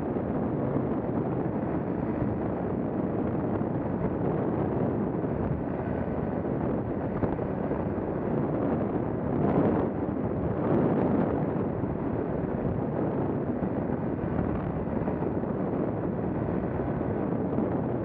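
Paramotor engine and propeller running steadily in flight, mixed with wind buffeting the microphone, in strong gusty air; the wind noise swells louder about halfway through.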